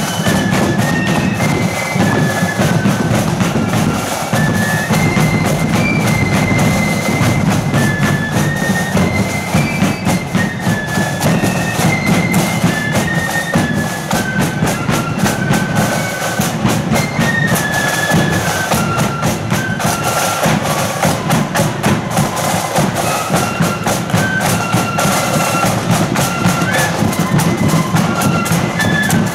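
Marching flute band playing a tune, high flutes carrying a stepping melody over continuous drumming.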